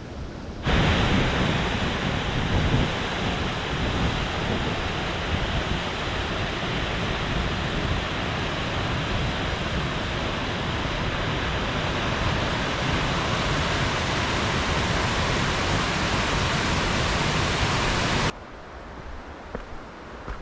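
Steady, loud rush of a waterfall, starting abruptly about a second in and cutting off suddenly near the end.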